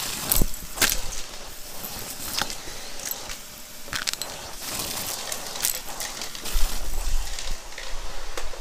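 Shark Navigator vacuum drawing air through its crevice tool and wand with a steady hiss, while small bits of crunchy debris click and rattle irregularly as they are sucked up. A low rumble comes in about two-thirds of the way through.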